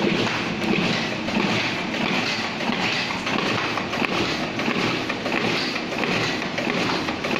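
Riso KZ30 digital duplicator running and printing, a steady mechanical clatter repeating a little more often than once a second as sheets feed through.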